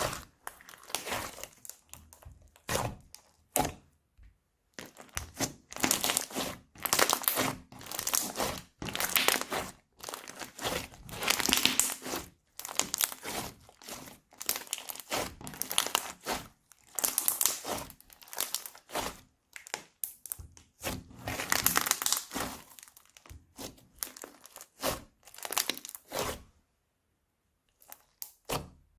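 Plastic bags crinkling and rustling as they are squeezed and handled, in a long run of irregular bursts that stops a few seconds before the end.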